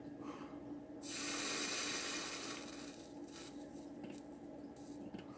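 Liquid soldering flux sizzling under a hot soldering iron tip and molten solder while an SMD pad is tinned. The hiss starts suddenly about a second in and dies away over the next two seconds, over a faint steady low hum.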